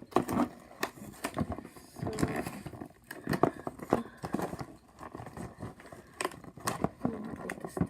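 Plastic packaging being handled: irregular rustling and crinkling with scattered taps and clicks.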